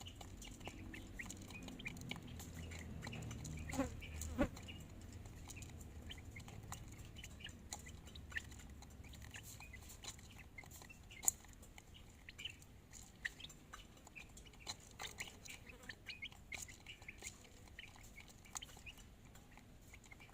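A chicken eating, with many small sharp pecking taps and occasional short clucks, two louder calls about four seconds in. A low rumble underlies the first half and fades out.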